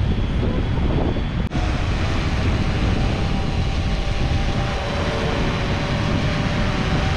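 Fishing drone's motors humming steadily in flight as it carries the line out, over a heavy low rumble. There is a short break about one and a half seconds in.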